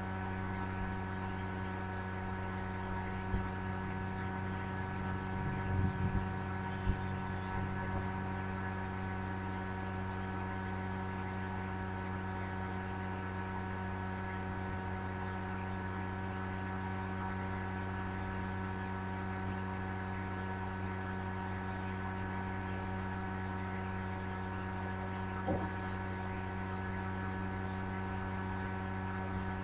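Steady electrical mains hum with a stack of evenly spaced overtones, broken by a few faint clicks or knocks in the first several seconds and once near the end.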